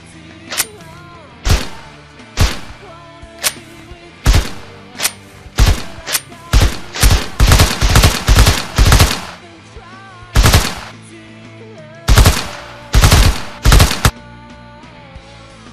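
Dubbed-in video-game gunshot sound effects: single shots about a second apart, then a fast string of shots, a lone shot and a short final burst. Quieter background music plays underneath.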